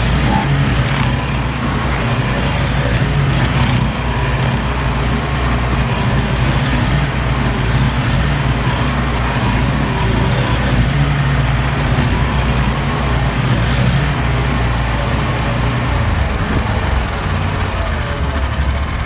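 Gasoline engine of outdoor power equipment running steadily under load, with a constant low drone.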